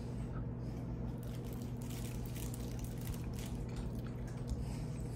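A person eating ramen noodles: soft, wet chewing and mouth sounds, over a steady low electrical hum.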